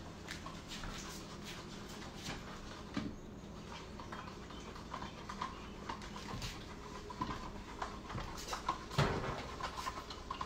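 A kitten mewing faintly in short calls, mostly in the second half, among scattered light clicks and taps, with one louder thump about nine seconds in.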